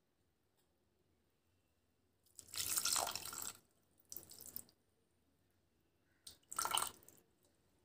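Dal cooking water being poured into an aluminium pot of mashed dal, splashing in three pours: a longer one about two and a half seconds in, a short one at about four seconds, and another about six and a half seconds in.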